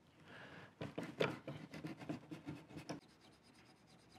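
Knife blade trimming a cork sheet along the edge of a wooden vise jaw: a run of short scratchy cutting strokes that stops about three seconds in.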